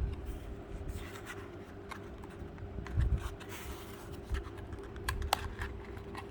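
Small clicks, taps and light knocks of hands handling a CPU and the motherboard's CPU socket hardware, with a few sharper clicks a little past the middle, over a faint steady hum.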